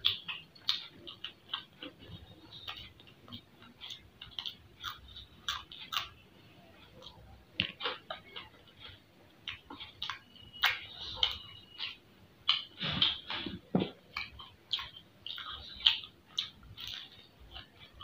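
Close-miked chewing of crunchy fried onion pakora: irregular crunches and wet mouth clicks, several a second, growing denser and louder about ten to fourteen seconds in.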